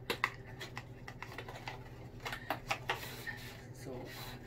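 A cardboard product box being handled and opened by hand: a run of light clicks and taps, most of them in the first second and a half and again around the middle.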